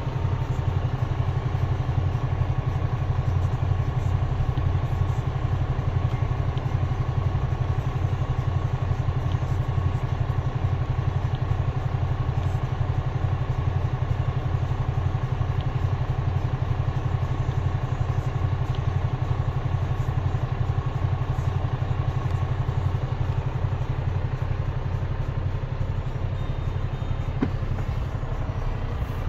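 Mercedes-Benz Antos truck's six-cylinder diesel engine idling steadily in neutral, heard from inside the cab.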